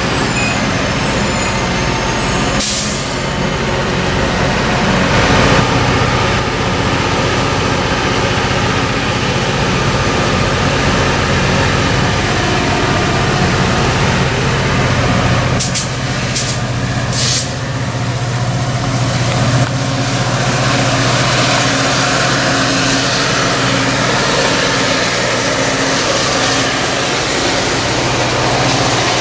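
Caltrain EMD F40PH diesel locomotive running with a steady low engine drone. Short sharp hisses of air cut in once about three seconds in and three times around sixteen to seventeen seconds.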